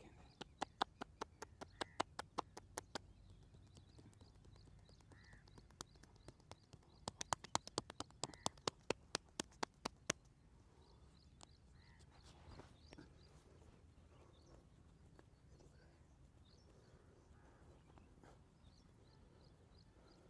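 Massage percussion: hands striking the body in quick, sharp claps, about five a second, in two runs with the second one longer. A single sharper crack comes right at the start.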